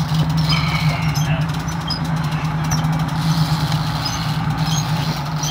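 Sport-fishing boat's engine running steadily with an even low drone.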